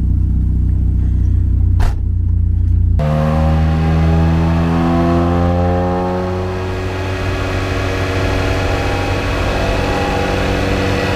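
Renault Clio 1.8 16V's four-cylinder engine running low and steady, then about three seconds in pulling up through the revs under load, its pitch rising steadily, as in a dyno power run.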